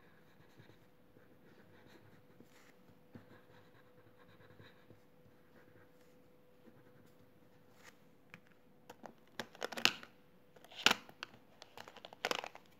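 Plastic crayon scratching faintly on drawing paper, then in the last few seconds a run of sharp clicks and rustles as crayons and paper are handled, loudest about ten seconds in. A faint steady hum sits underneath.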